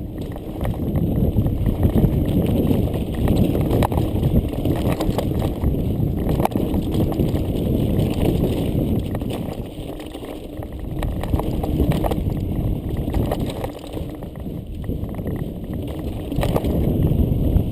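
Mountain bike riding over a rocky cobble trail: a continuous rattle and rumble with frequent sharp knocks as the wheels hit the rocks.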